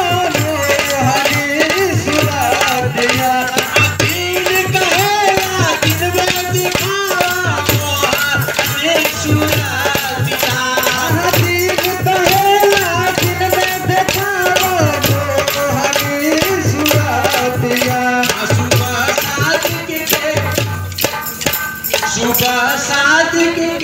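Men singing a Muharram salam into a microphone, with wooden jhari sticks clacked in rhythm and a steady low beat repeating about every second and a half.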